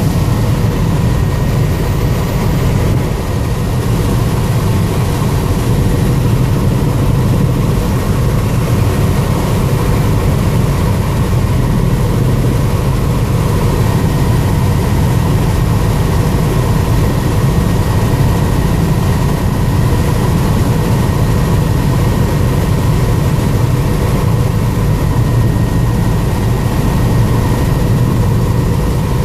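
Helicopter in flight heard from inside the cabin: a loud, steady low rumble of engine and rotor with a thin, steady high whine above it.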